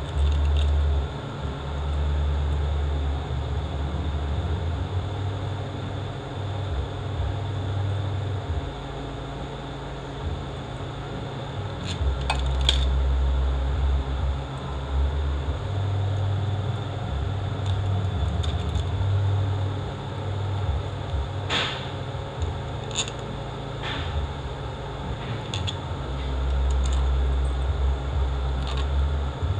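Occasional light metallic clinks and taps of small bolts and brackets being handled and set onto an RE4R01A transmission valve body, over a low, uneven rumble.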